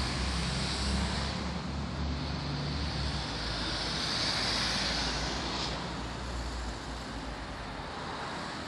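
Road traffic passing below: car engines rumbling and tyres hissing on the road, with one car swelling past about halfway through and the sound easing off near the end.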